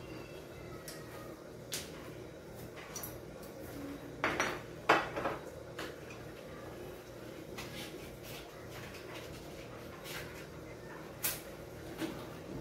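Kitchen clatter at a stove: scattered clicks and clinks of pots, utensils and containers being handled, with a loud cluster of knocks about four to five seconds in and two more single knocks near the end.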